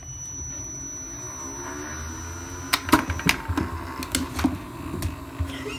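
iFetch automatic ball launcher with a thin, steady high whine that stops a little over three seconds in, followed by a run of sharp knocks and clicks as the small tennis ball is launched and bounces.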